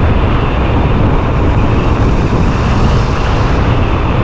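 Steady wind and road rush from riding a custom electric BWS 100 scooter, with a heavy low rumble of wind buffeting the microphone and no engine sound.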